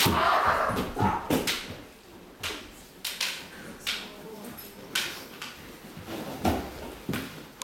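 Kendo sparring: a loud kiai shout on a lunging strike, then a string of sharp clacks of bamboo shinai striking and clashing, with stamping feet on a wooden floor.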